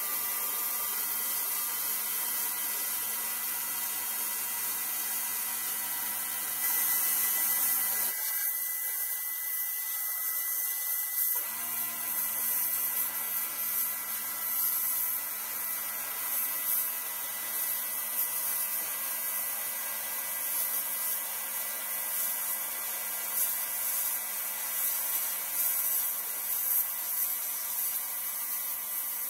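Blast cabinet's blast gun hissing steadily as the abrasive strips red paint off a pressed-steel toy truck panel. It grows louder about a quarter of the way in.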